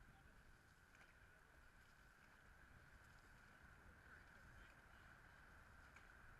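Very faint, muffled sound of a dragon boat being paddled through the water: a steady low rumble with faint knocks or splashes of the paddles now and then, over a faint steady high whine.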